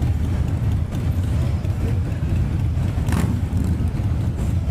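Motorcycle engines running with a steady, deep rumble. A brief sharp noise cuts through about three seconds in.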